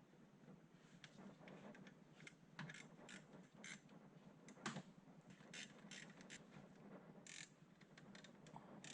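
Faint, scattered short clicks and scrapes, a dozen or so irregularly spaced, the strongest about halfway through, over near silence.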